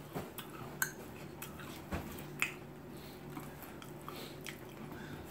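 Close-miked chewing of a pastrami sandwich: scattered soft, wet mouth clicks and smacks over a faint steady hum.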